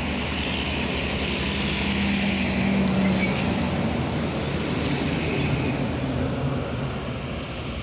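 Heavy trucks passing close by one after another on a highway, with a steady engine drone for the first few seconds and continuous tyre and road noise.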